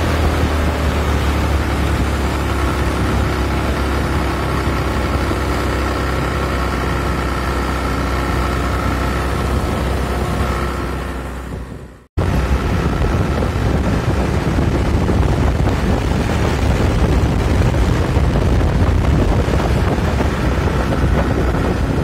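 Motorcycle engine running steadily while riding, with wind and road noise on the microphone. The sound fades out about halfway through, then comes back abruptly at a cut and carries on the same.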